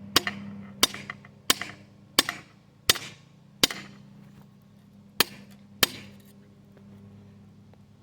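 Hammer striking hot steel on a thick aluminum-block anvil set on wood: eight sharp blows, each ringing briefly, about one every 0.7 s with a short pause before the last two, over a steady low hum.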